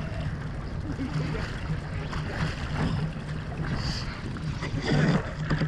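Hobie 16 catamaran sailing fast in strong wind: water rushing past the hulls and wind buffeting the microphone, with a low steady hum underneath. A louder surge of spray comes about five seconds in.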